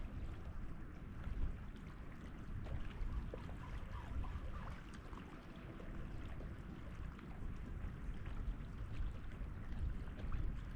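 Wind buffeting the microphone in a low, uneven rumble, over a faint hiss of sea water by the jetty.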